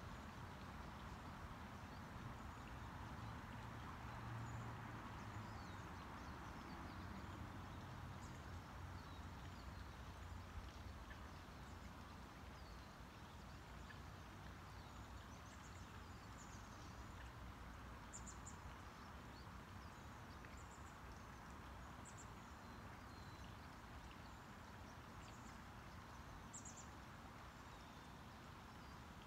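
Quiet outdoor ambience: a faint steady background hum with scattered faint, high bird chirps.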